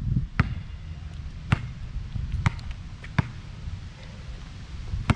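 A basketball bouncing on a hard outdoor court: five sharp bounces at uneven spacing, about a second apart. A steady low wind rumble on the microphone runs underneath.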